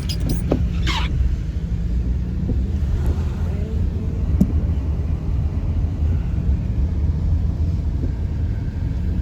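Steady low rumble of a car driving along a road, with a few brief clicks in the first second and another about four seconds in.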